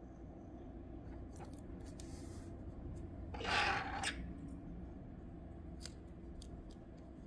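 Washi tape being handled and pulled from its roll over cardstock: quiet rustling, with one brief rasping rush lasting under a second about halfway through, and a few faint clicks.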